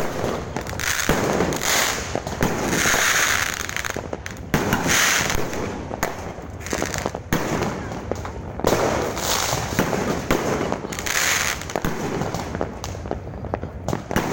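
Fireworks going off in quick succession: a dense run of bangs and pops, with hissing, crackling bursts every couple of seconds.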